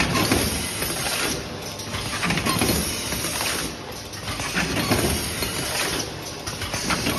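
Automatic two-head paper lunch box forming machine running, a steady mechanical clatter and hiss whose high end thins briefly about every two and a half seconds.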